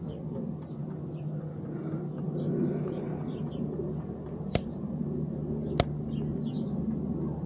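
A steady low motor hum holding several even pitches, with faint short bird chirps over it. Two sharp clicks come about four and a half and six seconds in, as fingers handle the camera.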